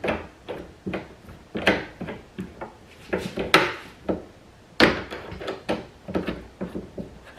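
Irregular clicks and knocks of lawnmower handle parts being handled and fitted, with a loose screw being put back, the strongest knocks about three and a half and five seconds in.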